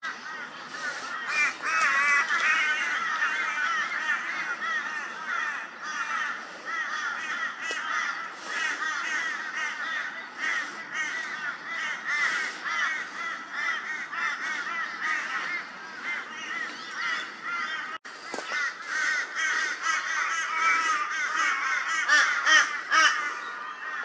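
A flock of many birds calling at once, a dense chorus of overlapping warbling calls that runs on without a pause. It drops out for an instant about eighteen seconds in.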